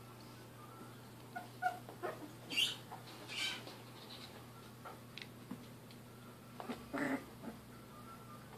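German shorthaired pointer puppies wrestling, with short squeaks and yips in scattered bursts.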